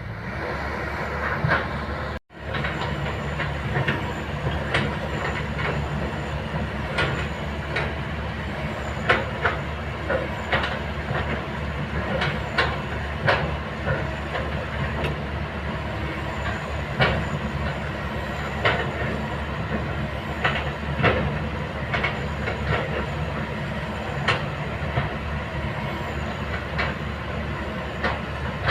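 Kobelco hydraulic excavator at work: a steady diesel engine drone with frequent, irregular metallic clanks and knocks.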